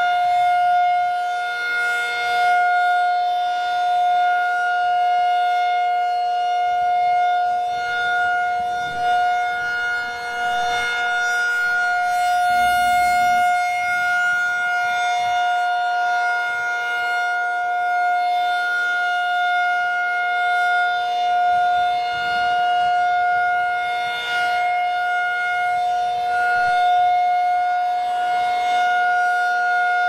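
Federal Signal 2001-SRN electronic siren sounding a steady tone that does not rise or fall in pitch. Its loudness swells and fades slowly as the rotating horn head sweeps past.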